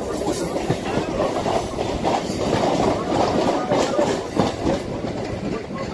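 Electric multiple unit (EMU) suburban train running, heard from on board: a steady rumbling noise with dense, irregular rattling knocks from the wheels and carriage.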